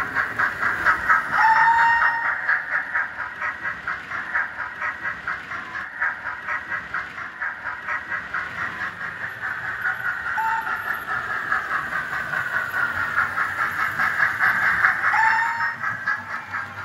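OO gauge model train running on the layout: a steady whirr of motor and wheels with a fast, regular clatter along the track. Three short squeaks cut in: about a second and a half in, about ten seconds in, and near the end.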